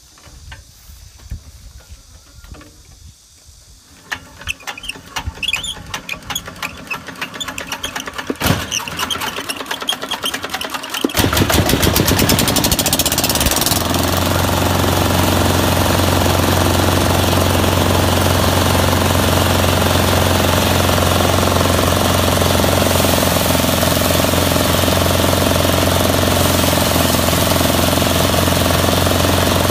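A small single-cylinder diesel engine on a rice thresher is being hand-cranked. A rhythmic clatter speeds up over several seconds, then the engine fires about eleven seconds in and settles into a loud, steady run.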